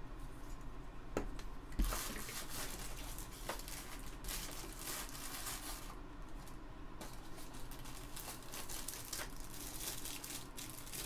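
Clear plastic bag crinkling in spells as a toy figure is worked out of it, after two light knocks in the first two seconds.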